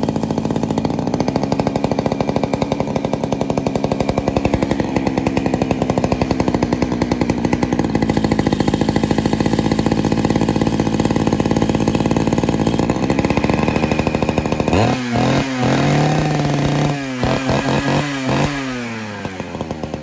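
Vintage Poulan two-stroke chainsaw running steadily at fast idle on its throttle lock. About 15 s in it is revved up and down several times, then it settles lower near the end.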